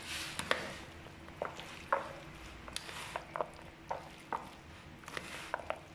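Metal spoon stirring yogurt-dressed chickpeas and potatoes in a plastic bowl: soft wet squishing with irregular clicks and taps of the spoon against the bowl.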